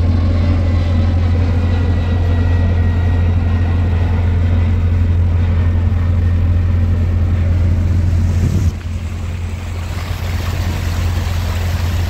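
Fishing boat's engine running steadily, a deep even hum; it drops a little in level about two-thirds of the way through.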